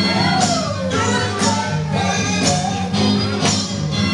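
Dance music played loud over a party sound system: a singer over a steady bass line and a beat of about two strokes a second.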